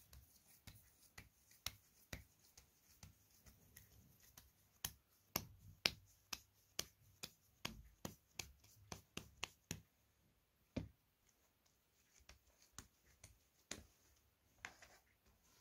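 Hands slapping and patting a ball of bread dough between the palms to round it. A run of sharp slaps, about three a second and loudest in the middle, thinning to a few scattered ones near the end.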